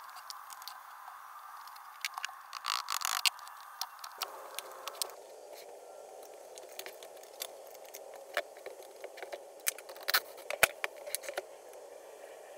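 Small clicks, taps and scrapes of an electric chainsaw's plastic housing and its screws being handled as the saw is dismantled, over a steady low hiss. The clicks come in a cluster about two to three seconds in and again about ten seconds in.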